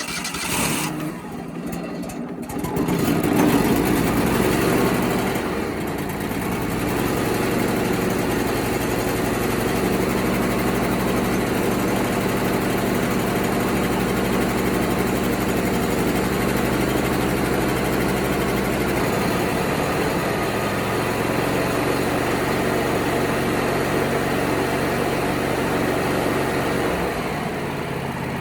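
Wood-Mizer LT35HD sawmill's gasoline engine starting on choke after a priming squirt of gas: it catches, speeds up briefly a few seconds in, then settles into steady running.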